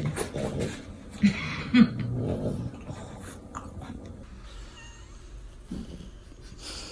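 French bulldog growling and grumbling while it wriggles and plays, with two short loud grunts about a second and a half in; the sounds die down after the first few seconds.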